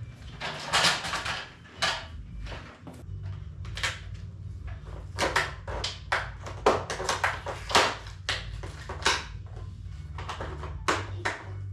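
Objects being handled and moved: an irregular run of knocks, clunks and clatters over a low steady hum.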